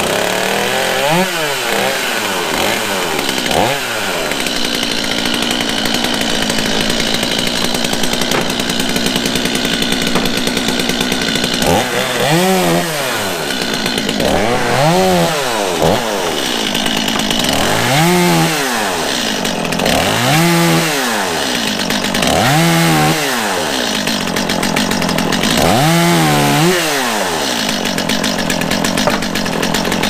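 Stihl 260 two-stroke chainsaw mounted on a lever-operated firewood chunker, running throughout and revving up and back down with each cut through slab wood: twice in the first few seconds, then about every two and a half seconds from about twelve seconds in.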